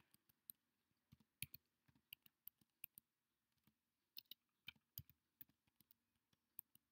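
Faint, irregular computer keyboard keystrokes and clicks as numbers are typed into fields one after another.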